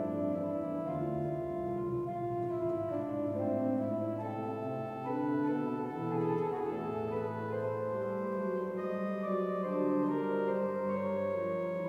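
Church pipe organ playing slow, sustained chords over a low bass, the harmony shifting every second or two.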